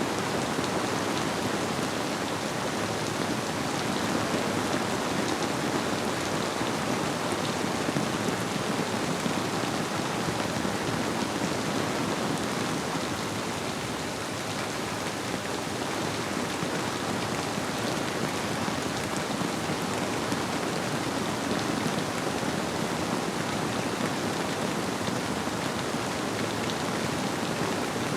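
Steady rain falling, blended with the even rush of a flowing river.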